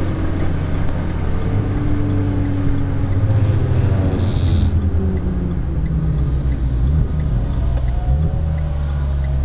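Renault Clio RS IV's 1.6-litre turbocharged four-cylinder engine under load at speed. About four seconds in the engine note falls away with a short hiss, then it climbs steadily again as the car accelerates.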